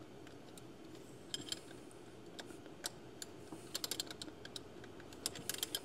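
Light, irregular metallic clicks and clinks of a thin 14 mm wrench working a fuel-line fitting on a Bosch K-Jetronic fuel distributor, coming more often in the second half.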